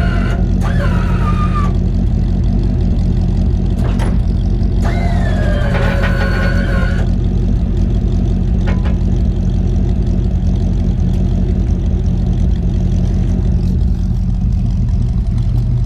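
Lowrider hydraulic pump motor whining in two short runs, one near the start and one about five seconds in, each settling to a lower pitch as it works to lift the car. A steady low engine idle runs underneath.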